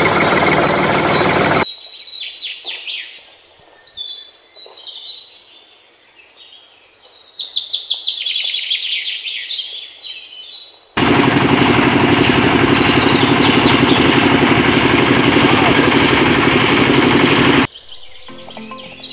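Small birds chirping in quick, high, rising and falling calls, between two stretches of loud, steady noise with a low hum. The first noise stops a couple of seconds in. The second starts abruptly about eleven seconds in, lasts about seven seconds and cuts off suddenly, after which the chirping returns.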